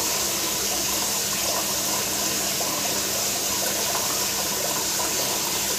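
Aquarium filter pump running: a steady rush of circulating water with a low, even hum.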